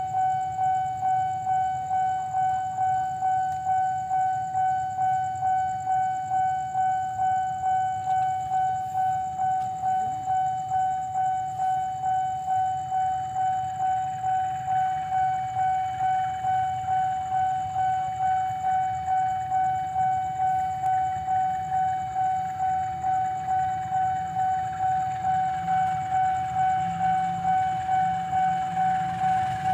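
Railway level-crossing warning alarm sounding a steady electronic tone that pulses about twice a second, warning of an approaching train. A low rumble grows under it near the end.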